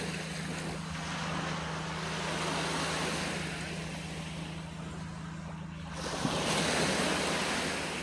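Small sea waves breaking and washing up a sandy beach, the surf swelling and fading twice, louder the second time near the end, over a steady low hum.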